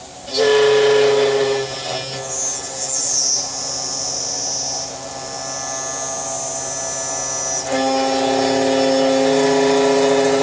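Elumatec SBZ 140 machining center's high-speed spindle cutting into an aluminum profile, a loud machining whine made of several steady tones that starts suddenly. A shrill high-pitched component sounds for most of the middle, and near the end the pitch shifts to a different, steady set of tones as the cut changes.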